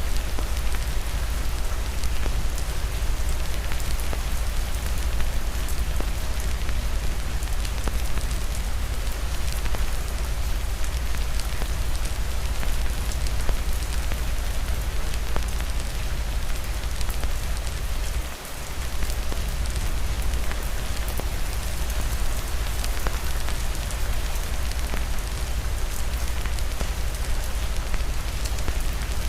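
Steady rain with a deep low rumble and many fine ticks, mixed with a fireplace crackling. The level briefly dips about two-thirds of the way through.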